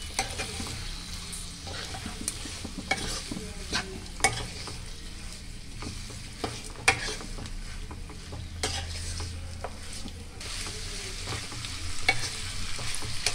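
Marinated raw chicken sizzling in hot oil with onions in a non-stick kadai as it is stirred. A metal spoon scrapes and knocks against the pan every second or so, with a few louder knocks.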